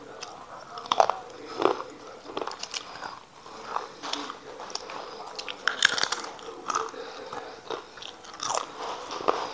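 Crisp fried chips being bitten and chewed close to the microphone: a run of irregular, sharp crunches, the loudest about a second in and again around the middle.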